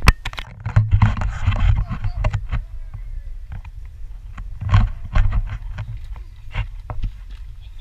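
Wind buffeting and handling knocks on an action camera's microphone as the camera is swung around: a low uneven rumble broken by many sharp bumps.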